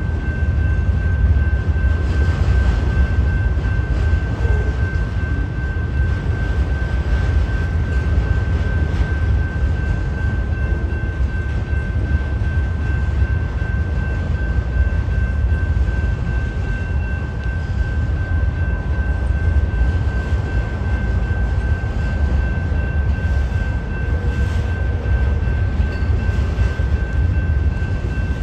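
Freight train of autorack cars rolling steadily past at close range: a deep continuous rumble with faint clicks of wheels over rail joints. A steady high-pitched tone runs throughout.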